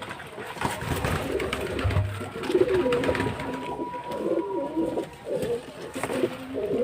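Domestic pigeons cooing, low warbling coos repeated over and over, thickest in the second half.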